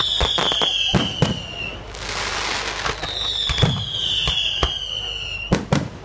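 Fireworks display: a rapid series of sharp bangs from bursting shells. Two long high whistles fall slightly in pitch, and a hissing crackle comes about two seconds in.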